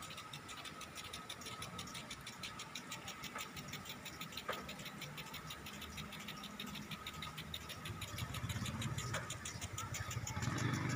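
Pitch-irrigation sprinklers ticking rapidly and steadily, about eight ticks a second. Under them runs a low engine-like rumble that grows louder near the end.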